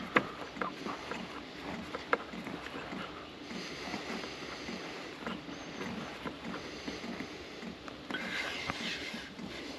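Hand work inside a plastic drawer unit: a few light clicks and taps in the first two seconds, then soft, steady rubbing and scraping as a screw hook is twisted by hand into the wooden wall behind it.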